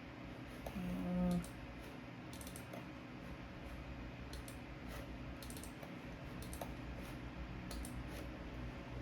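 Faint, scattered clicking of a computer keyboard and mouse over a steady low hum, with a brief low pitched tone about a second in.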